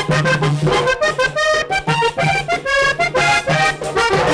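Hohner diatonic button accordion playing a fast vallenato melody: quick runs of short notes over a repeating pulse of low notes.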